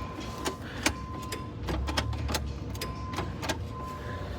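Sharp, irregular metallic taps and clicks from the starter motor of a diesel forklift being tapped to free it up, after the key gave only a single click. A low steady hum and a faint high tone that keeps switching on and off run underneath.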